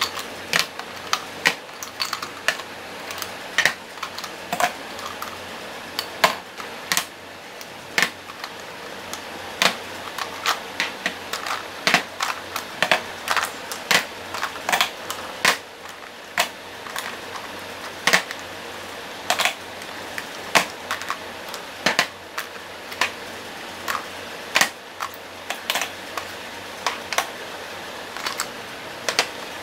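Lipstick and lip gloss tubes clicking and tapping as they are set one by one into a makeup organizer: irregular sharp clicks, sometimes several a second, with short pauses between.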